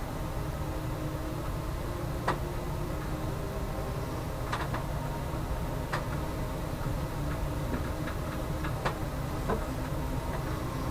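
A few light, sharp clicks and taps, about six spread out with no regular rhythm, from small parts and tools being handled during bench wiring work. A steady low hum runs underneath.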